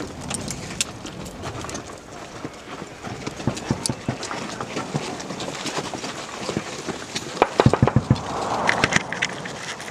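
Aftermath of a bangalore torpedo blast: scattered ticks and clicks of small rocks and gravel falling onto rocky ground. About seven and a half seconds in, a quick run of louder knocking footsteps on rock and gravel.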